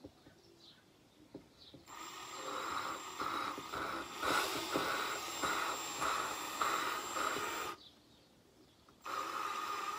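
Cordless drill spinning the exhaust valve of a Yamaha XT225 cylinder head against its seat through a wooden dowel, lapping it with coarse valve-lapping compound: a gritty grinding whirr that pulses in short surges. It starts about two seconds in, stops just before eight seconds and starts again about a second later.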